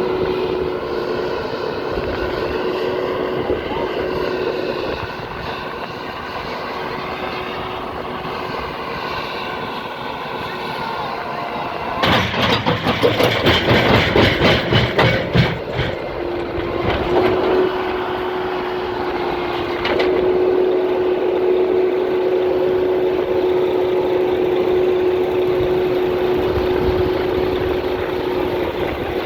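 Heavy road-vehicle engine running with a steady hum, its pitch wavering early on. About twelve seconds in comes a loud, rough rattling clatter lasting about four seconds, then the steady engine hum carries on.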